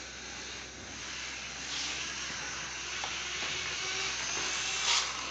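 OO gauge model train running on the layout: a steady hiss that builds up, with one sharp, brief burst near the end.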